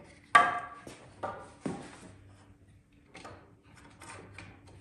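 Wooden knocks and light clatter as a 2x4 board is set against a wooden frame and clamped with a bar clamp. One sharp knock about half a second in and two more soon after, then fainter clicks and rattles.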